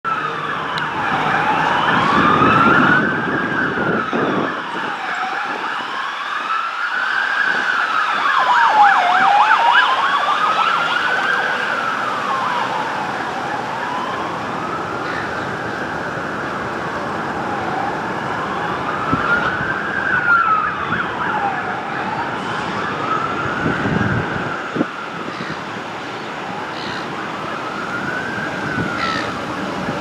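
Fire truck siren sounding a wail, its pitch sweeping slowly up and down about once every four seconds. Road traffic rumbles underneath, swelling twice, and there is a single sharp click about twenty-five seconds in.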